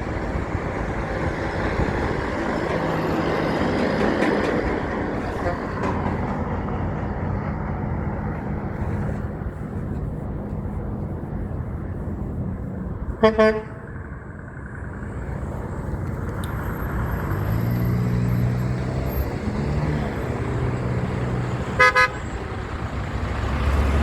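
Trucks passing on the road, with engine and tyre noise, the second one's engine humming as it comes near. Two short horn honks sound, one about halfway through and one near the end; the later one is from a Kenworth W990 semi-truck.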